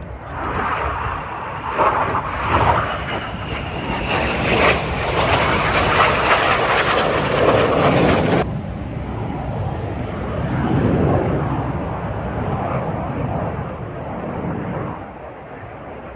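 Red Arrows' BAE Hawk T1 jets passing in display flight, their turbofan engines making a loud jet rush. The noise swells in the first couple of seconds, turns abruptly duller about eight seconds in, and then slowly fades.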